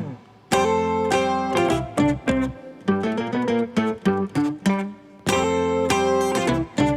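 Background music of plucked guitar-like strings picking a rhythmic melody, with full strummed chords about half a second in and again about five seconds in.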